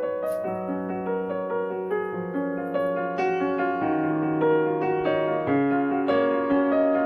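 Piano music: a calm melody of single held notes over a slowly descending bass line, changing about every half second.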